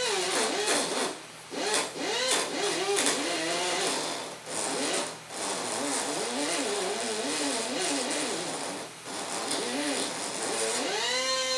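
Jet JAT-411 pneumatic right angle micro die grinder running with a ball nose end mill, its high whine rising and falling in pitch as it works against the cut, dropping out briefly a few times. Near the end it spins up to a steady full-speed whine.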